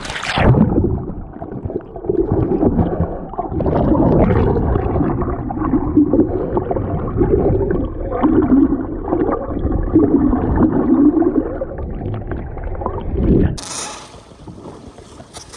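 Muffled sloshing and gurgling of seawater heard underwater, dull with the high end gone and a wavering low churn. Near the end it switches to quieter open-air sound of water splashing and lapping at a boat's side.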